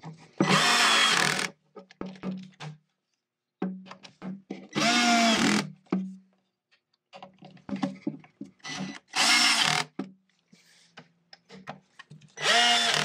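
Cordless drill-driver driving wood screws home in four short bursts of about a second each, its motor whine rising with each burst, tightening the drawer front to the drawer box.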